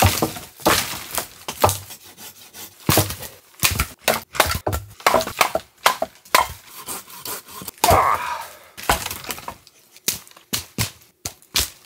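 Dry dead branches snapping and cracking as they are stomped with a heavy hiking boot and broken by hand, making an irregular rapid series of sharp cracks.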